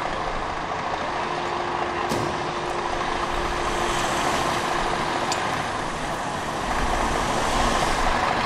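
Scania fire truck's diesel engine running steadily in the station bay, growing louder about seven seconds in as the truck gets ready to pull out. A short click sounds about two seconds in.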